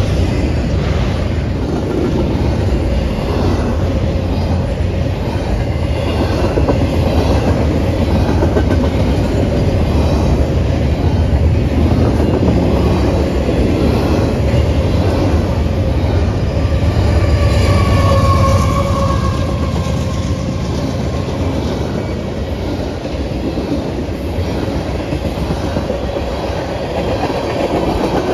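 Freight train cars rolling past close by: a steady rumble and clickety-clack of steel wheels on the rails. A brief high wheel squeal comes in about two-thirds of the way through.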